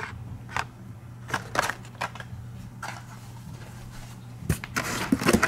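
Carded Hot Wheels cars being handled and taken out of their shipping case: scattered light clicks and rustles of cardboard card-backs and plastic blisters, busier near the end, over a faint low steady hum.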